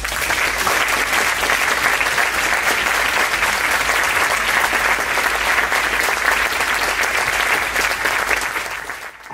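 Audience applauding after a talk: dense, steady clapping from a full hall that fades out near the end.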